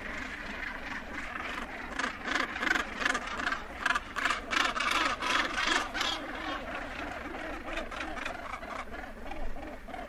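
Northern gannets calling close up at a colony: a rapid run of harsh, grating calls, loudest from about two to six seconds in, over the steady rasping chatter of the rest of the colony.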